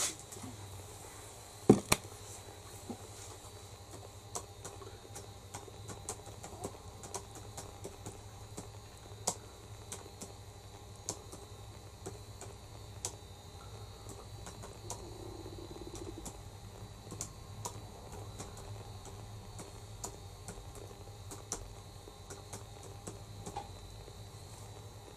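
Faint, irregular small clicks and ticks over a low steady hum, with a sharper knock at the start and another about two seconds in.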